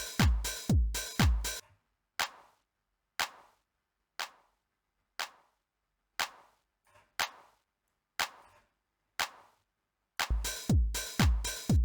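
909 drum machine beat played through an SSL-style channel strip plugin driven into its dynamics. A deep kick falling in pitch on every hit sounds about twice a second, then drops out after about a second and a half. A single sharp drum hit about once a second carries on alone until the full beat with kick returns near the end.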